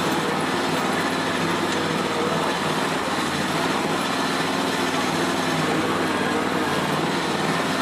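Engine of a Max IV 6x6 amphibious ATV running steadily as the vehicle cruises through swamp water, with an even drone that holds level throughout.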